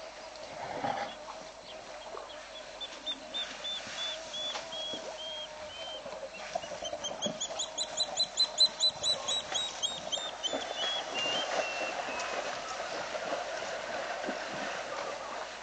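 A bird calling: a series of high notes that speeds up and climbs about halfway through, then trails off lower a few seconds later.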